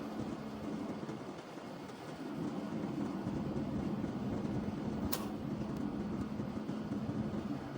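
Steady low mechanical hum of running machinery, with one short sharp click about five seconds in.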